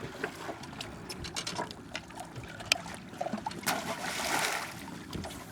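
Water trickling and splashing, with small clicks and knocks, and a louder splash a little under four seconds in.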